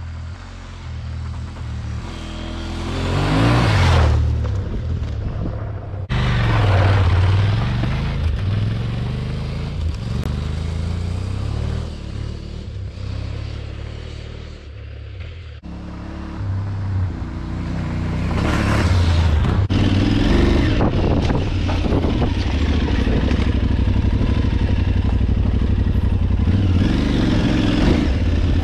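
Aprilia Tuareg 660's parallel-twin engine revving as the bike rides a gravel track. Its pitch rises and falls through the gears as it passes close about 3 to 4 seconds in and again around 7 seconds. After an abrupt cut near the middle, the engine runs steadily close up for the rest.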